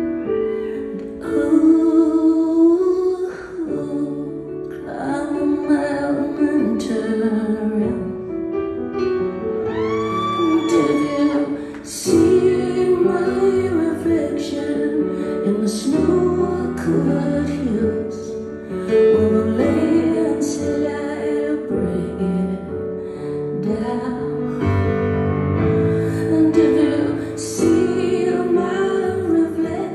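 A woman singing live to her own piano accompaniment, her voice gliding and holding notes over sustained piano chords.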